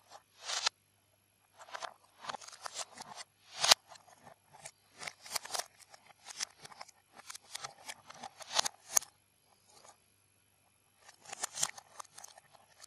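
Plastic Lego Technic parts clicking and rattling as they are picked from a pile and pinned together, with pieces knocking on a wooden floor. The clicks come in quick, irregular runs, the sharpest about three and a half seconds in, with a short pause near the end.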